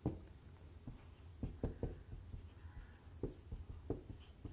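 Marker pen writing on a whiteboard: a scatter of short, faint strokes and taps as a word is written.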